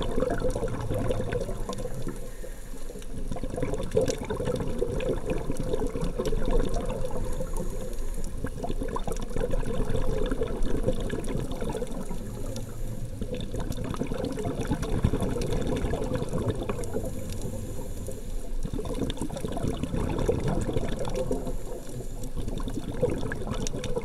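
Muffled, steady rush and slosh of water heard underwater through a sealed camera housing, with fine crackling clicks throughout.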